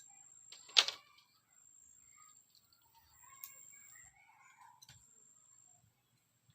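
A sharp knock about a second in, then faint scattered bird calls with two softer clicks.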